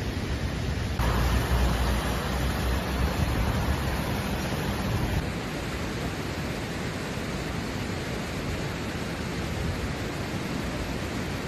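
Low wind rumble and road noise of riding along a mountain road, then, about five seconds in, the steady even rush of a fast-flowing white-water river.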